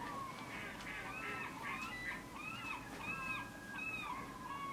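Several birds calling, short overlapping calls that rise and fall in pitch, repeating about twice a second.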